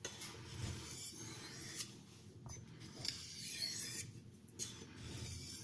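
Steel knife blade drawn across a fine oilstone in repeated strokes of about a second each, honing the edge.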